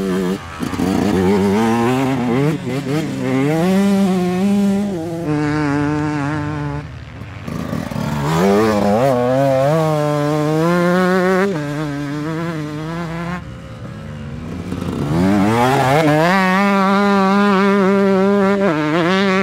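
Dirt bike engines accelerating hard, one bike after another, three runs in all. Each engine note climbs in pitch, steps down at a gear change and climbs again.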